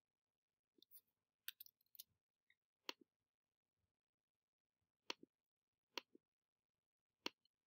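Near silence broken by a handful of faint, sharp computer mouse and keyboard clicks at irregular intervals, a small cluster about one and a half to two seconds in and single clicks after that.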